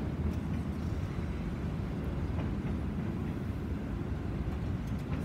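Freight train of covered hopper cars rolling past: a steady low rumble of steel wheels on rail, with a few light clicks.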